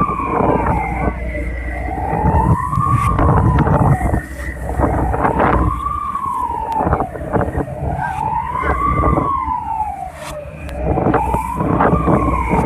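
A wailing siren rising and falling in pitch about once every three seconds, over the low rumble of wind and rough sea.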